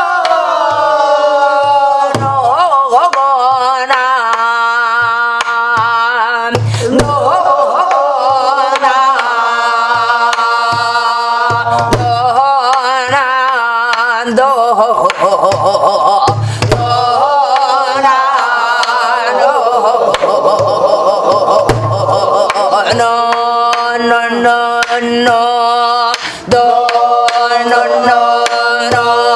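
A woman singing gueum, the Korean vocal melody sung on syllables rather than words, in pansori style, holding notes with a wide vibrato, while accompanying herself on a sori-buk barrel drum. The drumstick gives deep thumps on the drumhead and sharp clicks on the wooden body every second or two.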